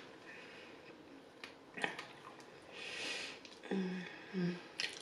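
Close-up eating sounds: a fork clicks sharply against a takeout container about two seconds in, then a soft breath, then two short 'mm' hums near the end.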